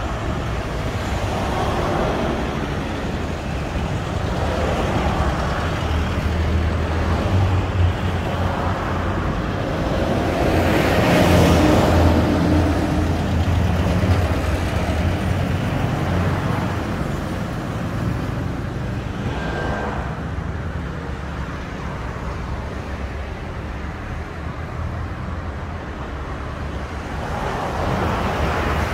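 Road traffic: cars passing one after another on a city junction over a steady low engine rumble, the loudest pass about eleven seconds in.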